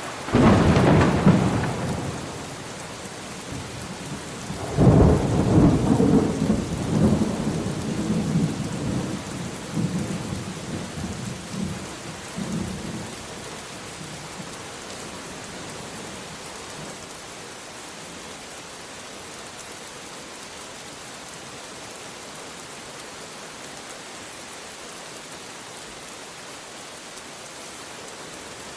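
Steady rain with two thunderclaps: a sharp crack just after the start that dies away within a couple of seconds, then a louder clap about five seconds in that rolls on in fading rumbles for some eight seconds. After that only the rain is heard.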